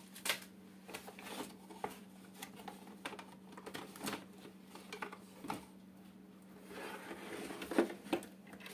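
Aquarium accessories and their cardboard and plastic packaging being handled: scattered light knocks, clicks and rustles, busiest near the end, over a steady low hum.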